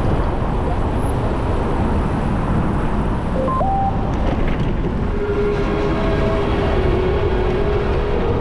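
Wind rumbling over an action camera's microphone on a moving bicycle, mixed with the noise of city traffic in the adjacent lane. From about halfway through, steady engine tones join in as a box truck draws alongside.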